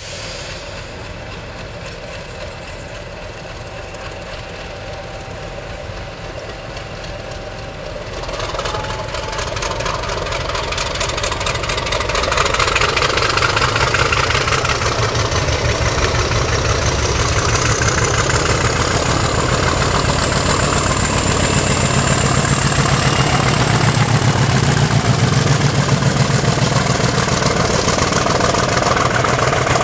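British Rail Class 50 diesel locomotive's English Electric 16-cylinder engine idling, then opening up about eight seconds in and running louder under power as the locomotive pulls away. A high whine climbs steadily in pitch as it gets under way.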